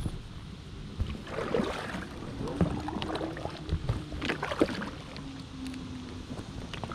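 Paddle strokes splashing in the water beside an inflatable boat, with a few knocks of the paddle shaft, in two bouts about one and a half and four and a half seconds in.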